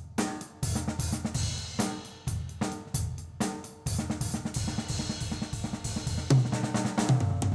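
Acoustic drum kit being played: a groove of snare and bass drum strikes with hi-hat and cymbals, turning busier with more cymbal wash about four seconds in, then a run of heavy low drum hits near the end.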